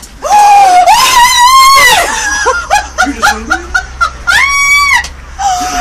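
A woman screaming with excited delight: one long high scream, then a quick run of laughter, then a second shorter scream about four seconds in.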